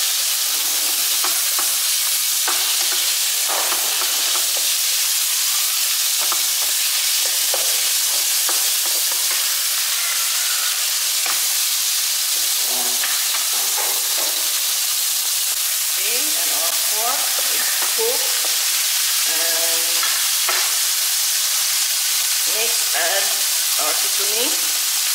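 Pork mince sizzling in hot oil in a nonstick frying pan, stirred and broken up with a spatula that scrapes and taps against the pan. The steady sizzle runs under many short scrapes and knocks.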